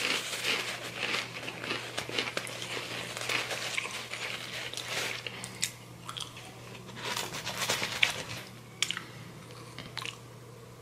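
Crunching and chewing of Takis rolled corn tortilla chips: a run of crisp, irregular crunches that thin out near the end.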